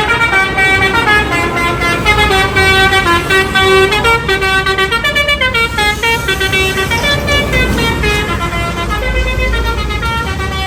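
Multi-tone telolet horn playing a quick melody of short stepping notes, over a low engine rumble that swells near the end.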